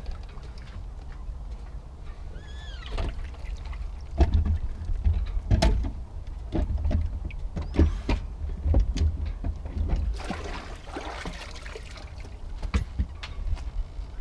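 Handling noises: irregular knocks and clicks, with a short squeak about three seconds in and a rustle around ten seconds in, over a low rumble.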